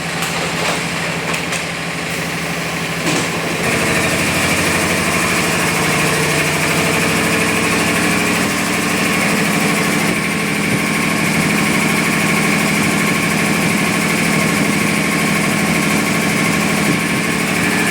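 Oil-free air compressor running with a steady mechanical hum. About three and a half seconds in it grows louder and a high whine joins in, then both hold steady.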